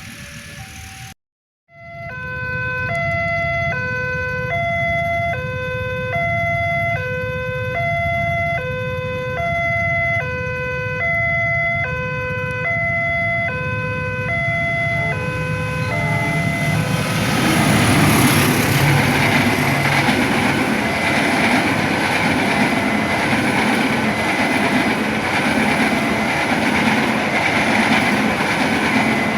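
Electronic level-crossing warning alarm sounding two tones in a steady alternating high-low pattern. About two-thirds of the way through, a passing train's loud rolling rumble and rail noise builds and drowns it out.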